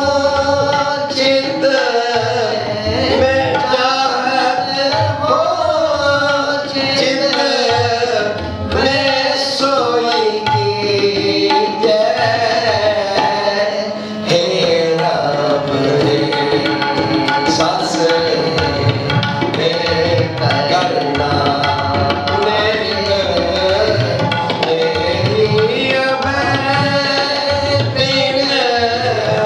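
Sikh kirtan: voices singing a hymn over two harmoniums, with a tabla keeping the beat.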